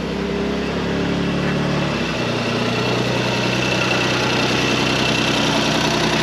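Suzuki Cappuccino's turbocharged 657 cc three-cylinder F6A engine idling steadily just after being started, on its stock intake. Its note shifts slightly about two seconds in.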